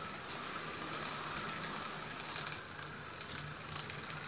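Model diesel locomotive running along the layout's track: a steady rolling whir of motor and wheels on rails with a faint low hum and a few light clicks.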